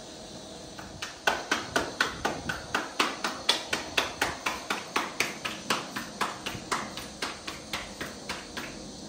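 Hands rhythmically slapping and patting a stuffed aloo-gobi paratha dough round flat between the palms, about four pats a second. The pats begin about a second in and grow weaker near the end.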